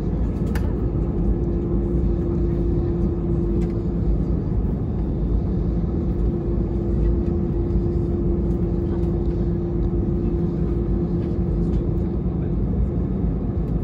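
Cabin noise of an Airbus A320-216 taxiing: the CFM56 engines at low power and the airframe make a steady low rumble, with a steady droning hum that fades for a couple of seconds about five seconds in.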